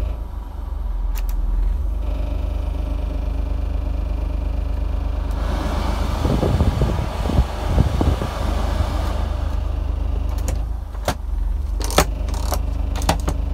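Honda Acty's small three-cylinder engine idling with a steady low hum, heard from inside the cab. For about four seconds in the middle, the heater blower fan adds a rush of air, and near the end the plastic heater-control sliders click several times as they are moved.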